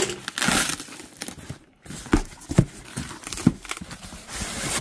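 A cardboard shipping box being opened by hand. There is a loud scrape of the taped flap lifting at the start, then crinkling cardboard flaps being folded back with a few dull knocks against the box.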